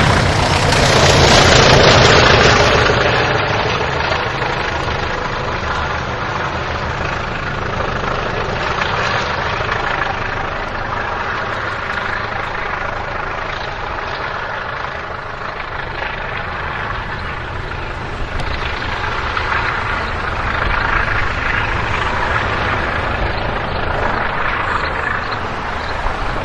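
The English Electric engines of a pair of class 20 diesel locomotives running steadily. A louder rush of noise comes in the first two seconds.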